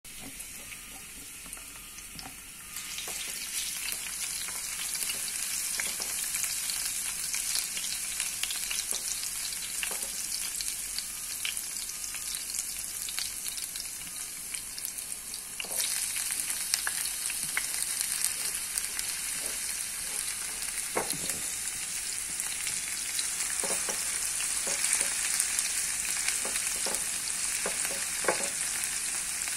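Chopped garlic sizzling in hot oil in a nonstick frying pan. The sizzle grows louder about three seconds in as the garlic goes in, and louder again about halfway through when diced red onion is added. Through the second half a spatula scrapes and taps in the pan as the onion is stirred.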